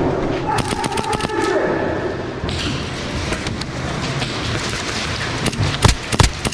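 Airsoft gunfire: a quick string of sharp cracks about half a second in, then a steady noisy background with scattered clicks, and two loud thumps near the end.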